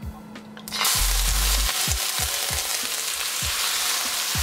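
Chicken thigh pieces dropped into hot peanut or grapeseed oil in a wok: a loud sizzle starts suddenly just under a second in and holds steady as the chicken begins to stir-fry. Background music with a steady beat runs underneath.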